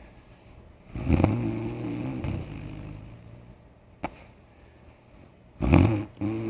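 A man snoring in his sleep. There are two loud snores with a low buzzing pitch: a longer one about a second in and a shorter one near the end, with a brief click between them.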